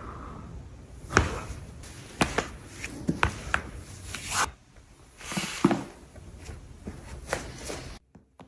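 A string of sharp cracks and clicks from joints being manipulated in chiropractic adjustments, irregularly spaced, over a steady background hiss. The sound cuts off abruptly near the end.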